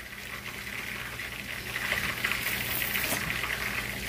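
Hot oil sizzling and crackling, growing louder about halfway through, over a steady low hum.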